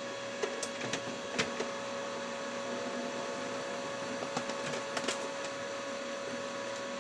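Office printer running as it prints a page: a steady mechanical hum with a constant tone and a few short clicks.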